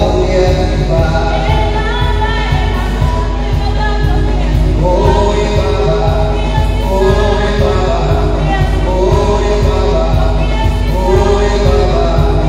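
Church worship music: voices singing long held notes over instrumental backing with a steady beat.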